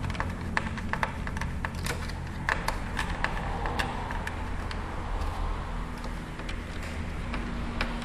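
Screwdriver driving small screws into a PlayStation 3's cover: irregular light clicks and ticks over a steady low hum.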